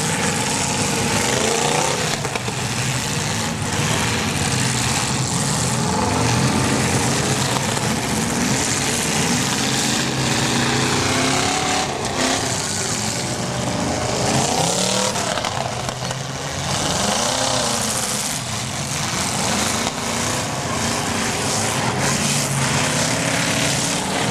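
Several demolition-derby cars' engines revving at once, their pitch rising and falling over and over as the cars drive and ram one another.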